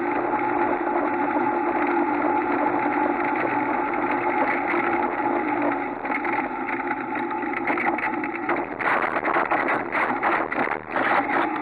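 Buggy engine running steadily with a held tone as it drives a dirt track. From about nine seconds in, a rapid run of knocks and rattles as the buggy leaves the track and bounces through tall grass and brush.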